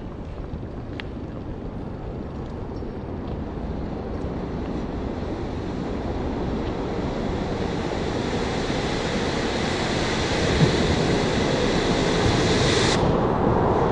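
Ground firework fountain spraying, a steady hiss that builds louder as it burns. About thirteen seconds in, the high part of the hiss drops away abruptly while a lower rushing goes on.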